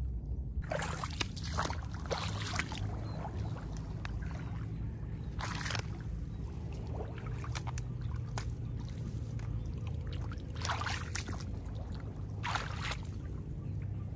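Shallow paddy water splashing and sloshing in a handful of separate bursts as someone wades through a flooded rice field, over a steady low rumble.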